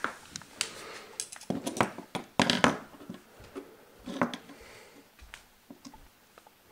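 Clicks and knocks of metal bicycle front derailleurs being handled and set down on a wooden tabletop: a scattered run of sharp taps, loudest in a cluster about two and a half seconds in, thinning to a few light ticks near the end.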